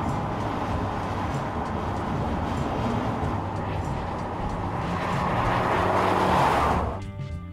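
2022 Audi RS3 Sportback's turbocharged five-cylinder engine and tyres running at speed on the road, a steady rumble and rush. It swells louder a few seconds in as the car comes closer, then cuts off suddenly near the end.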